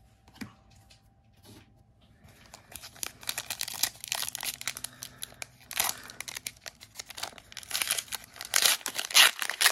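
Foil wrapper of a Pokémon Hidden Fates booster pack crinkling and tearing as it is ripped open by hand. A few small taps for the first couple of seconds, then dense crackling that is loudest near the end.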